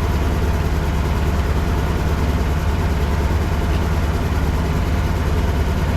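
An engine idling steadily: a deep, even drone with no change in pitch or level.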